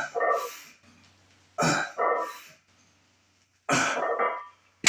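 A man's forceful breaths, three of them about two seconds apart, each a quick double puff, in time with heavy lifting reps.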